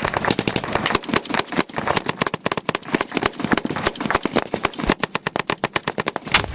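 Sustained small-arms gunfire in a firefight: many rifle and machine-gun shots overlapping at several a second, irregular and close by. A heavier, deeper bang comes at the very end.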